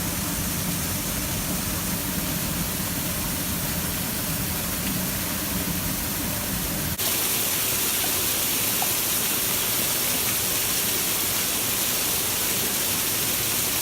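Waterfall rushing, a steady wash of water noise; about halfway through it cuts abruptly to a brighter, hissier and slightly louder rush.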